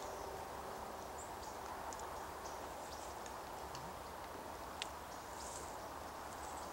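Quiet outdoor ambience: a steady low hiss with scattered faint, very short high chirps and a single sharp click about five seconds in.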